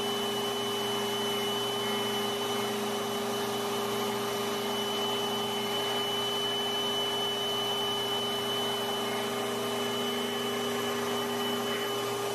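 Router running steadily at speed with a constant whine, its bit set into the plywood. The high tone drops out just after the end.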